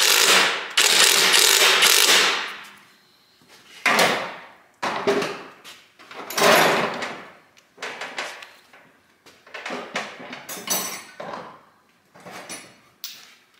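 Cordless impact wrench run for about two seconds, tightening the engine mount nut on its stud, followed by a few shorter noisy bursts and lighter metal clatter.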